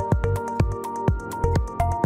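Background electronic music with a steady dance beat, regular kick drums and hi-hats under held synth notes.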